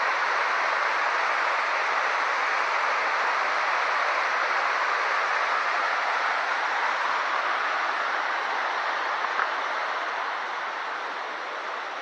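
River rapids rushing over rocks, a steady rush of water that eases a little near the end.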